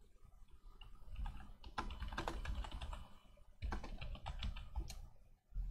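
Typing on a computer keyboard: two runs of quick keystrokes, the first starting about a second in and the second just after the halfway point, with a short pause between them.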